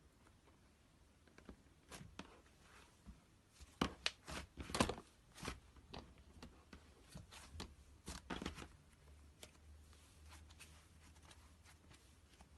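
Hands working slime: a run of irregular crackling clicks and sticky pops, thickest and loudest around four to five seconds in, that thins out after about nine seconds.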